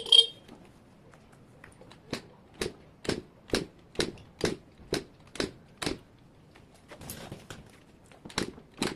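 Vespa 50cc scooter engine being kicked over with no exhaust fitted: a sharp clack, then a steady run of short puffs, about two a second, one for each compression stroke, with more near the end. The engine is not firing, though its compression sounds healthy.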